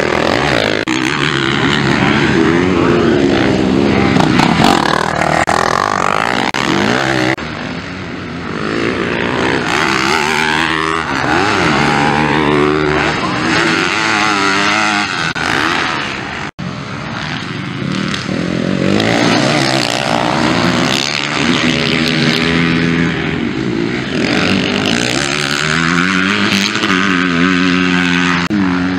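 Motocross bikes' engines revving hard as riders race past on a dirt track, the pitch climbing and dropping again and again as they accelerate and shift. The sound breaks off abruptly twice.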